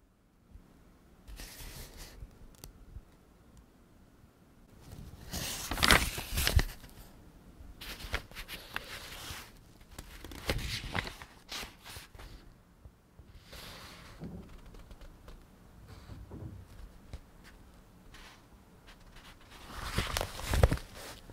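Pages of a book being turned by hand: dry paper rustling and flicking in irregular bursts, with the loudest page turns about six seconds in, about eleven seconds in, and near the end.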